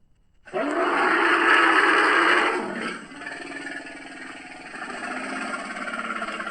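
A Stegosaurus sound effect: a loud roar breaks in about half a second in and eases after about two seconds into a quieter, pulsing growl that carries on past the end.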